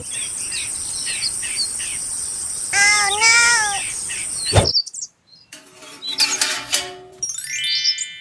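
Birds chirping, with a louder warbling call about three seconds in; the sound cuts off abruptly a little before halfway, followed by a few brief tones and a short sweeping sound near the end.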